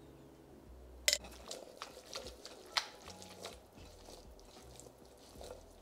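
Cooked chickpeas being tossed with oil and spices in a mixing bowl: irregular light clicks and wet squishing, the loudest click about a second in.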